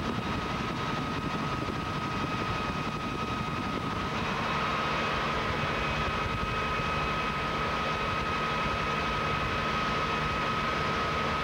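Helicopter in flight, heard from inside the cabin: a steady engine and rotor drone with a constant high whine on top. It grows slightly louder about four seconds in.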